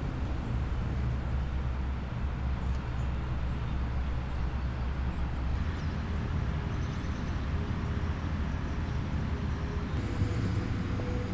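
A steady low rumble, with faint short chirps high up through the first half; a faint steady tone joins near the end.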